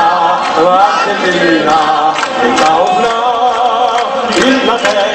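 Many voices singing a tune together over music, with the audience singing along.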